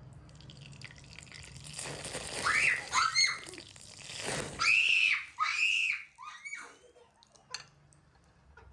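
A kitten meowing repeatedly: about six short, high calls that rise and fall, with a rustling hiss behind the first few.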